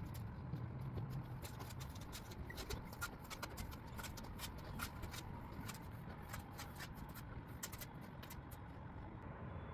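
Irregular light clicks and taps of hand work on a garage door bottom seal and its aluminum retainer track, thickest in the first half.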